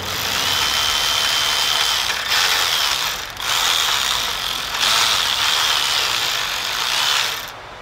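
Electric ratchet running a stud in, in several runs with short pauses between them and a faint high whine over a hissy rattle. It stops shortly before the end as the stud seats.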